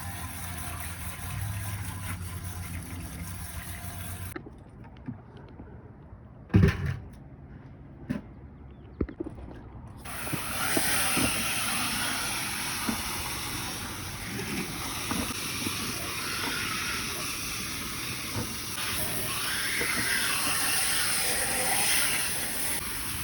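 Water spraying steadily from a hose, rinsing HVAC parts, from about ten seconds in. Before that comes a steady hum, then a quieter stretch with one loud knock and a few light clicks.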